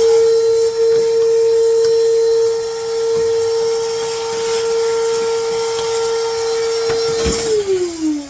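Small vacuum cleaner running with a steady high whine, sucking grinding dust out of a skate-sharpening machine. About seven seconds in it clicks off and the motor winds down, its pitch falling.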